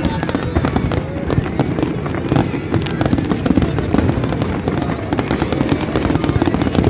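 Fireworks display going off in a dense, continuous barrage: many bangs and crackles overlapping one after another with no pause.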